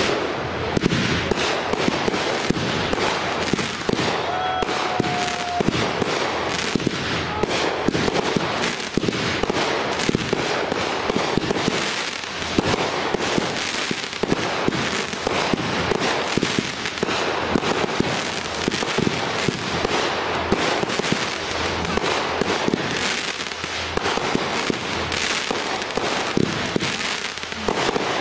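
Aerial fireworks going off in a dense, unbroken barrage of sharp bangs and crackling.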